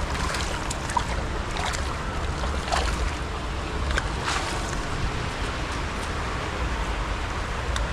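Shallow river water running over stones, with a low wind rumble on the microphone. Scattered short splashes and knocks as a hand scoop net is dipped and dragged through the water.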